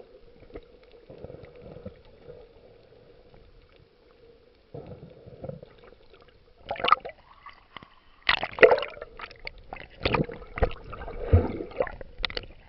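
Water gurgling and splashing. It is quiet with a faint steady hum for the first half, then a run of irregular, sharp splashes and gurgles from about halfway in.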